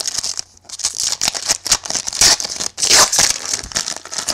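Foil trading-card pack wrapper crinkling and tearing as it is ripped open by hand: dense irregular crackling, loudest about two to three seconds in.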